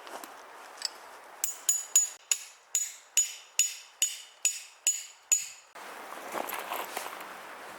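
A hammer strikes a metal tent stake about a dozen times in a steady rhythm, two to three blows a second. Each blow rings briefly with a high metallic tone.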